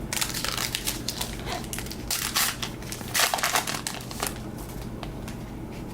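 Crinkling and crackling of a trading-card pack's foil wrapper being handled and opened, in several short bursts, with cards shuffled in the hands.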